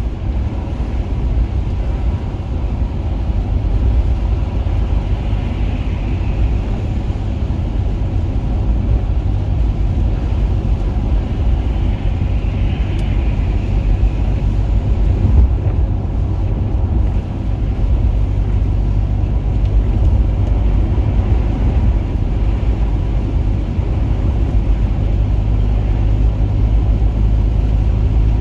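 Honda Accord driving, with a steady low rumble of engine and road noise.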